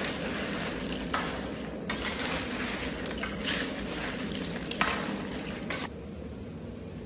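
A cooking utensil clattering and scraping against a pot of simmering seafood hotpot, about six short sharp clinks and rattles, over a steady low rumble that drops off about six seconds in.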